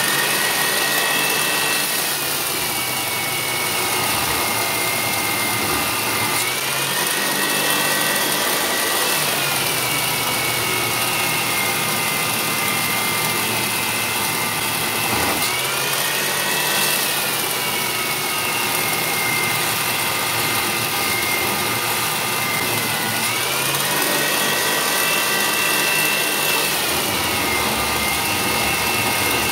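Compact 2x42 belt grinder driven by a servo motor, its abrasive belt grinding the edge of a 3/16-inch mild steel plate: a steady whine over a hissing grind. The whine rises in pitch and sinks back several times.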